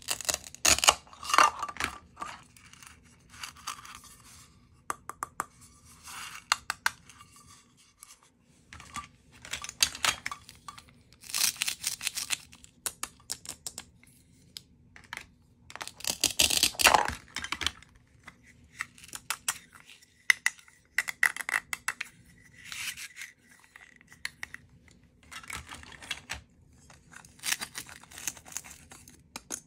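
Toy play-food pieces held together by hook-and-loop strips being cut with a toy plastic knife and pulled apart, giving a series of short rasping tears, with light plastic clicks and taps between them. The longest rasps come about a second in, around the middle, and near the end.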